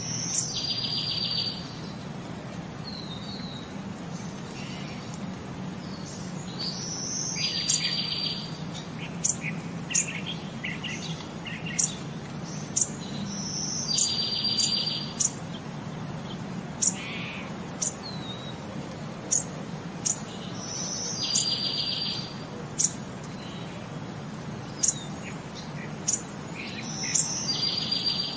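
Birdsong ambience looping about every seven seconds: high short chirps and sharp ticks, with a buzzy trill about a second long in each repeat, over a steady low hum.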